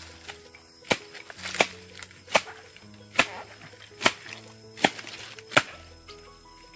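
Seven sharp chops of a blade cutting at the base of an asam maram palm clump to free a fruit cluster, about one every 0.8 s, stopping near the end. Background music plays underneath.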